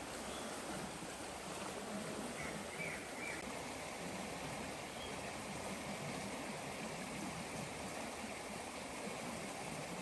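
Steady rushing of a forest stream, an even wash of flowing water, with a few faint short high chirps a couple of seconds in.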